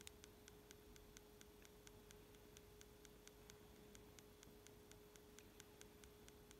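Faint, rapid clicking of a Garmin Forerunner 935's lap button being pressed over and over, about four clicks a second, each press logging a new stopwatch lap. A faint steady hum lies underneath.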